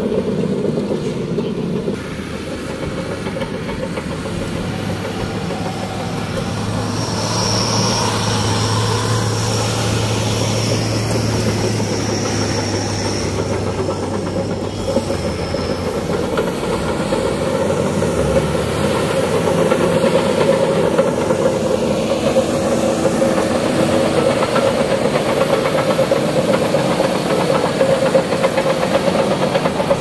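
Shantui SD16L crawler bulldozer's diesel engine running under load while its steel tracks clatter as it travels and pushes earth. A high thin whine rises over the engine for several seconds around the middle.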